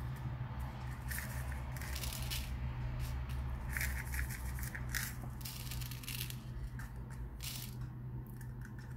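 Small plastic sequins poured and shaken out of a plastic tub onto a paper card, giving a scatter of light, irregular rattling clicks over a steady low hum.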